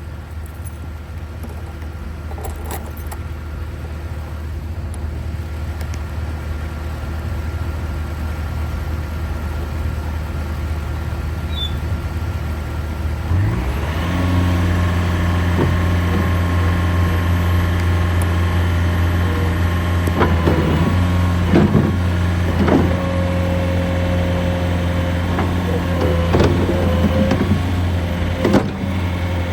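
Bobcat T650 compact track loader's diesel engine running steadily at low speed, then throttled up about 13 seconds in to a higher, steady speed. Several sharp knocks and clunks from the working machine follow in the second half.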